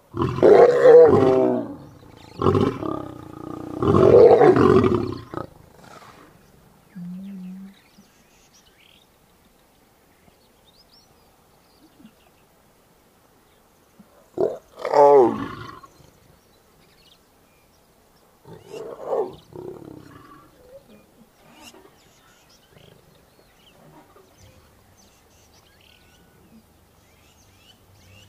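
Lioness snarling and roaring in aggression at a male lion. Three loud snarls come close together in the first five seconds, then a long pause, another loud snarl about halfway through and a softer one a few seconds after it.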